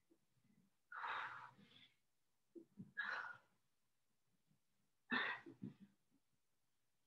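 Three faint, forceful breaths out, about two seconds apart: a woman exhaling with the effort of each pike up with her feet on a stability ball.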